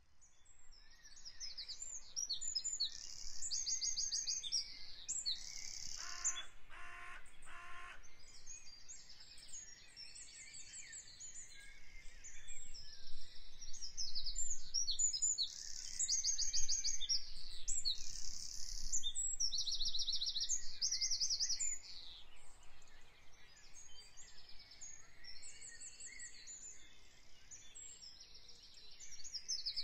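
Woodland songbirds singing: a continuous chorus of high, fast trills and chirps from several birds, with a lower call repeated three times about six seconds in.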